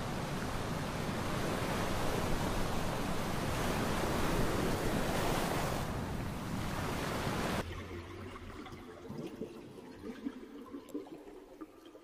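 Ocean surf washing onto a beach, a steady rushing noise that cuts off suddenly about two-thirds of the way through, leaving only faint, quieter sounds.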